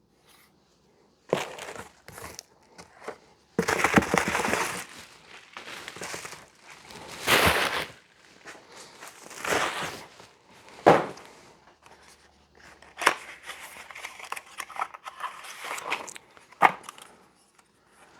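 Packaging being unwrapped by hand: irregular bursts of crinkling and tearing, with a few sharp clicks and knocks along the way.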